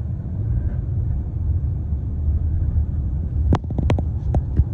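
Low, steady rumble of a car in motion: road and engine noise from a moving vehicle. A quick run of short, sharp clicks comes in about three and a half seconds in.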